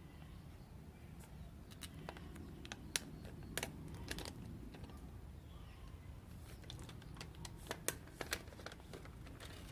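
Faint scattered clicks and light rustling from a smartphone and its packaging being handled, with small taps bunched about three to four seconds in and again around eight seconds.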